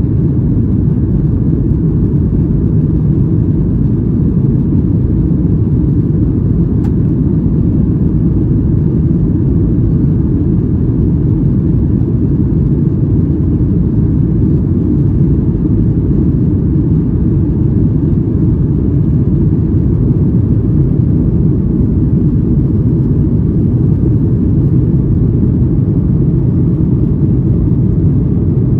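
Cabin noise of a Boeing 737-800 in flight: a steady low rumble of its CFM56-7B jet engines and the airflow over the fuselage, unchanging in level.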